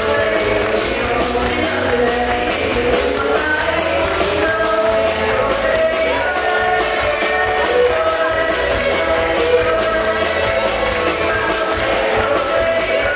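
A woman singing lead with a live band, electric bass and drum kit keeping a steady beat.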